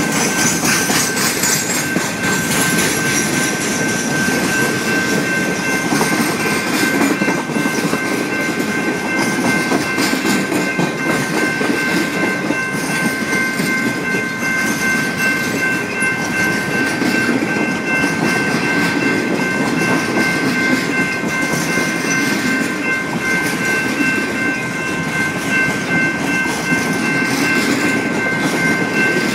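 Norfolk Southern Triple Crown RoadRailer trailers rolling past at speed: a steady rumble with wheels clicking over the rail joints, and steady high tones held over it.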